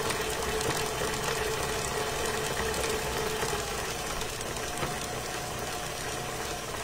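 Electric stand mixer running at a steady speed with a constant hum, its paddle beating eggs into creamed butter and sweetener in a steel bowl. The mix is being worked back together after starting to split.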